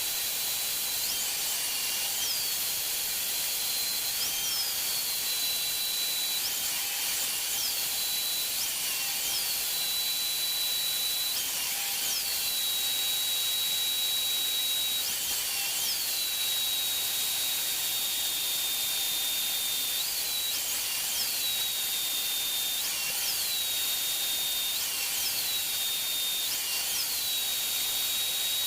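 High-speed power tool motor whining steadily over a hiss. Its pitch jumps sharply up and slides back down again about every two to three seconds.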